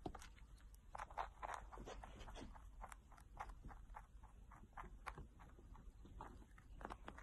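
Near silence with faint, irregular soft ticks and rustles, about three a second.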